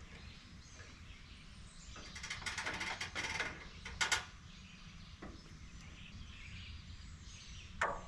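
A short rattling clatter of clicks and knocks, then one sharp knock about four seconds in, over a low steady rumble of outdoor background noise.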